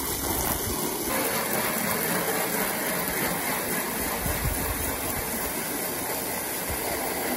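Hose spray of water hissing and splashing steadily on corrugated galvanized steel roofing panels, rinsing off the acid used to rust them.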